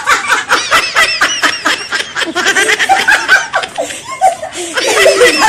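Several people laughing loudly together, women and children, in quick repeated ha-ha pulses that ease off about four seconds in and pick up again near the end.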